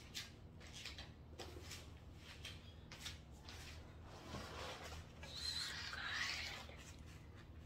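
Quiet room with a low steady hum and faint small knocks. About four seconds in, a longer scraping rustle comes as a person sits down at the table: the chair moving and clothing brushing.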